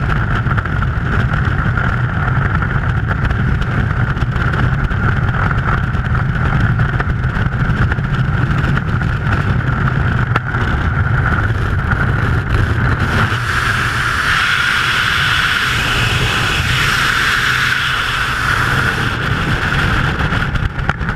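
A motor running steadily under heavy wind rumble on the microphone, growing brighter about two-thirds of the way through.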